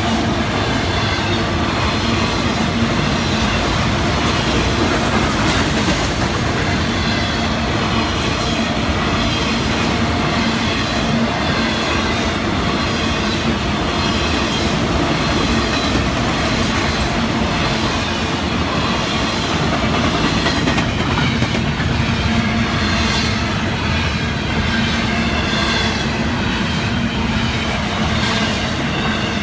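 A Florida East Coast freight train's autorack and intermodal cars rolling past, a steady heavy rumble and clatter of steel wheels on the rails.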